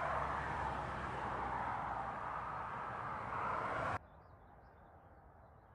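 Steady rushing noise of road traffic that cuts off suddenly about four seconds in, leaving a quiet background with faint, high bird chirps.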